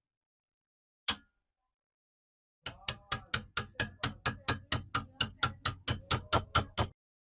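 Mechanism of a restored antique hand drill being worked: a single click, then a steady run of sharp clicks, about four and a half a second, growing somewhat louder.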